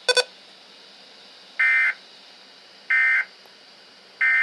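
Emergency Alert System end-of-message data tones: three identical short, buzzy warbling bursts about a second and a third apart, signalling the end of the alert. A brief buzzy click comes right at the start.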